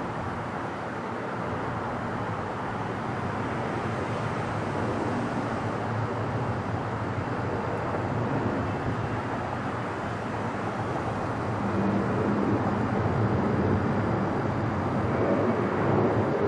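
McDonnell Douglas MD-11 freighter climbing out after takeoff, its three jet engines making a steady rumbling noise that grows louder over the last few seconds.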